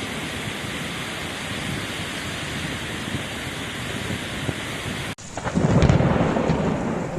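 Heavy rain falling steadily in a storm. About five seconds in, the sound cuts off abruptly and a louder, deeper rumble follows.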